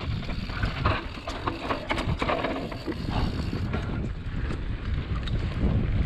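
Mountain bike rolling fast down a dry dirt and leaf-litter trail: tyre rumble with the bike rattling and clicking over bumps, heaviest about one to three seconds in, under a steady low wind rumble on the handlebar camera's microphone.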